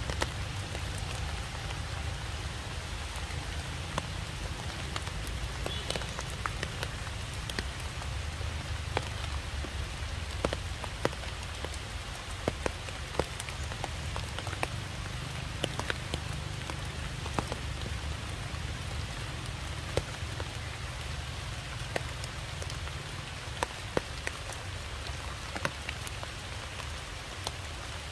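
Raindrops falling on wet ground and leaves: a steady hiss with scattered sharp drip ticks every second or two.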